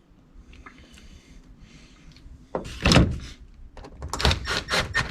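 Faint handling noise, then a loud knock and a run of irregular clunks and clicks as hand tools and parts are picked up and set down on a hard surface.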